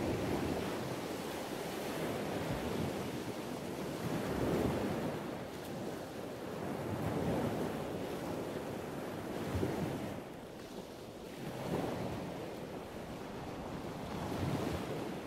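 Sea waves washing, with wind noise, swelling and easing every two to three seconds.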